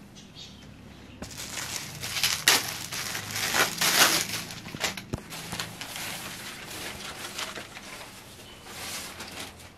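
Cloth rustling and crinkling as suit fabric and a dupatta are handled, lifted and unfolded. It starts about a second in, is loudest over the next few seconds, then tapers off.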